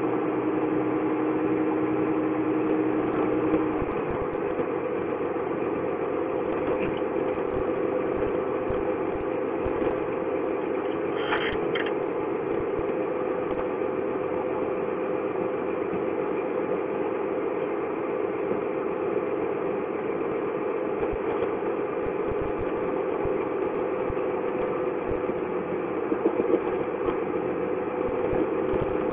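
Diesel engine of a large blue New Holland tractor running steadily as the tractor works through deep mud, with a short high-pitched sound about eleven seconds in.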